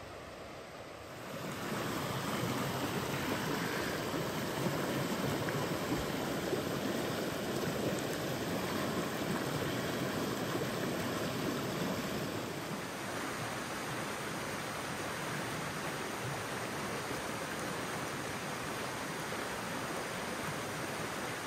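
Steady rushing of running water, louder from about a second and a half in and easing slightly about twelve seconds in.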